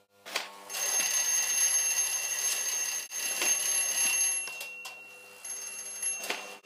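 An electric bell ringing continuously, with a short break about three seconds in, a weaker stretch near the end, then a last burst before it stops.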